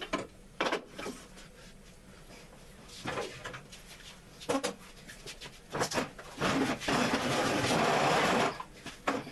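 Workshop handling noises: a few scattered knocks and clicks, then about two seconds of loud, even scraping or rubbing, the loudest sound, starting a little past six seconds in.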